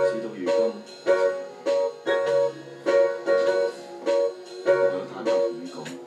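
Casio electronic keyboard played in short, repeated chords, about two a second in a steady rhythm, with a plucked-string tone and some low bass notes under them.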